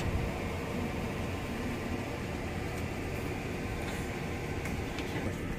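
Steady rumble and hiss inside a passenger train compartment, the even running noise of the carriage.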